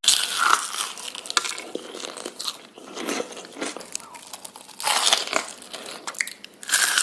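Close-miked crunchy bites into crisp food, with crackly chewing between them. Loud crunches come at the start, about five seconds in, and again at the end.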